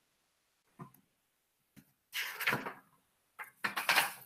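A few brief, soft knocks and rustles in a quiet room: one about a second in, then a longer cluster in the second half.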